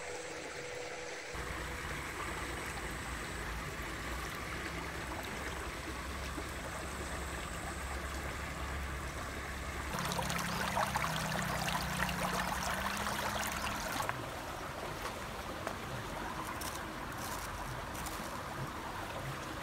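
Shallow stream trickling and babbling over stones, louder for a few seconds about halfway through, with a low rumble underneath. A few light clicks near the end.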